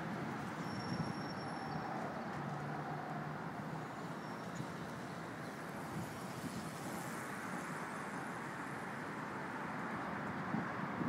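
Steady traffic noise from vehicles crossing the bridge, an even wash of sound with no single vehicle standing out.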